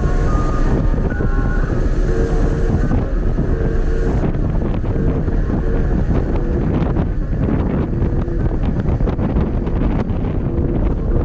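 Wind buffeting the microphone over the steady rumble of a moving vehicle, with clatter and rattles from about four seconds in.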